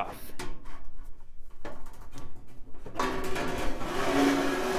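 The one-piece outer shell of an old AT tower case being worked loose and slid off the chassis. A few clicks and knocks come first, then from about three seconds in a long scraping as the cover slides off.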